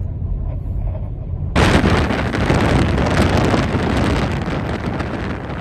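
Gale-force wind buffeting a phone's microphone: a low rumbling buffet, then about a second and a half in a sudden, much louder rushing blast of wind that carries on.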